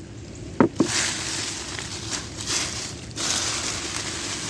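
Rustling and crunching of leaf mulch as hands dig through it for potatoes, with two sharp knocks just under a second in.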